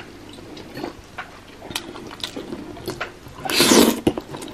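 Eating sounds: small clicks of a fork and mouth, then one loud slurp of spaghetti about three and a half seconds in.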